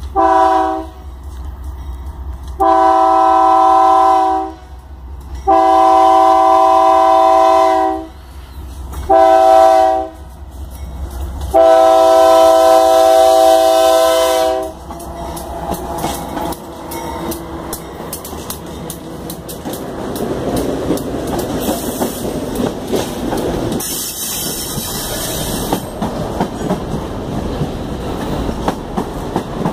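Diesel freight locomotive's multi-tone air horn sounding five blasts (short, long, long, short, long) as it approaches. It then passes and the freight wagons roll by with a steady clickety-clack of wheels over the rails, with a brief high hiss partway through.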